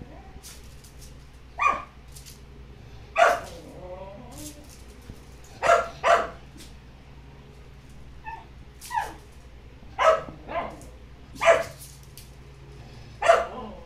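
Small curly-coated dogs barking while they play: about nine short, sharp barks spread unevenly, some coming in quick pairs.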